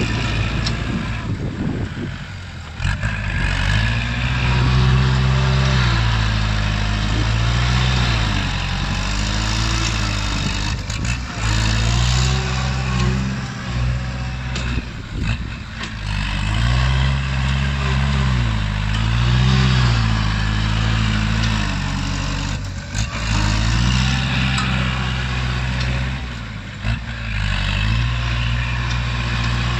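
Kubota tractor's diesel engine working under load as it pushes soil with a front dozer blade. Its pitch rises and falls over and over as the load comes and goes, with a few knocks.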